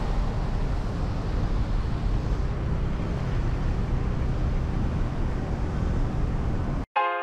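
Street traffic of buses and cars: a steady low engine rumble with a hiss of road noise. It cuts off suddenly near the end, and piano music comes in.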